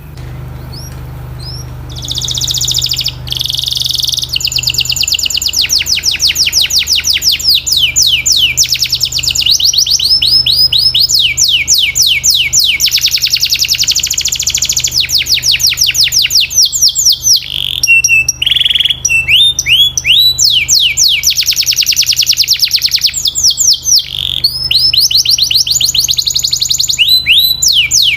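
Domestic canary singing: fast rolling trills of rapidly repeated notes, one phrase running into the next with brief breaks. The song starts loud about two seconds in.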